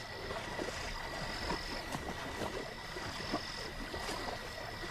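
Swamp frog chorus: many short clicking calls over a steady high-pitched trill, with a higher trill coming and going about once a second.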